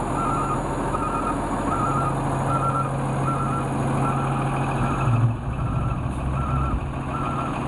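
2005 Autocar WXR garbage truck's diesel engine idling steadily, with a backup-style alarm beeping about every three-quarters of a second. About five seconds in, the engine note briefly surges.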